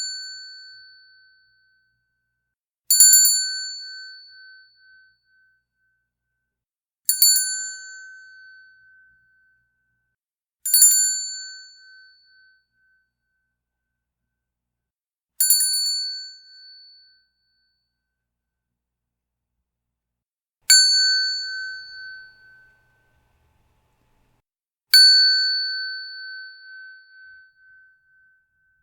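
Entrance bell struck singly six times, about four to five seconds apart. Each strike is a clear, high ring that dies away over a second or two.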